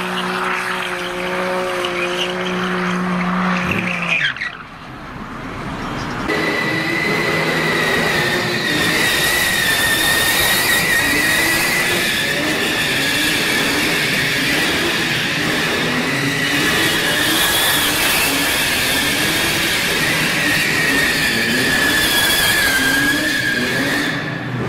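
BMW M4 engine held at high revs in a smoky burnout, then a cut to cars drifting in tyre smoke: a long, steady tyre squeal with the engine revving up and down again and again.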